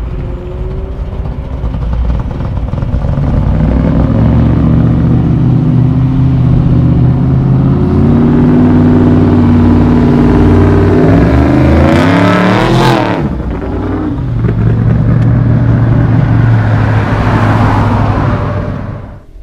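A classic car's deep, loud engine note grows as it approaches and passes close by about twelve seconds in, its pitch dropping as it goes. Near the end a second vehicle's tyre and engine noise swells as it passes.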